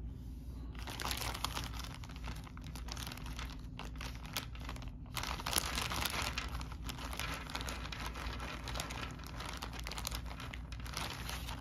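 Plastic bag crinkling and rustling as it is handled, starting about a second in, with a short pause about halfway through.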